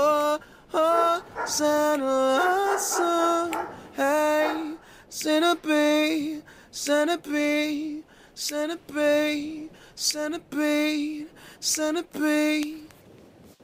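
A single voice singing unaccompanied, in short phrases of held notes with brief gaps between them.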